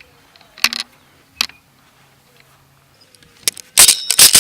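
Airsoft guns firing: two single sharp shots early, then a quick volley of loud, sharp cracks near the end.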